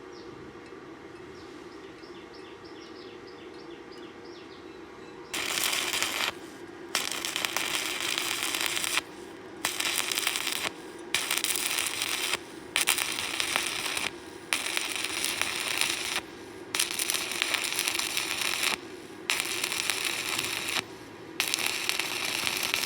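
Stick (arc) welding: the electrode's arc crackles loudly in runs of one to two seconds, each broken by a short gap as the arc is stopped and struck again. It starts about five seconds in, over a steady low hum.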